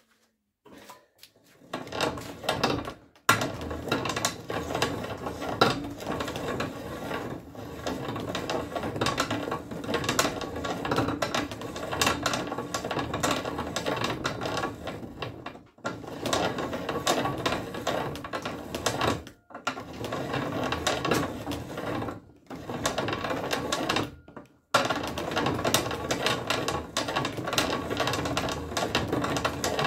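Barrel reamer being turned by hand in a rifle barrel's bore, cutting with a dense, rapid scraping chatter. It starts about a second in and stops briefly a few times between turns.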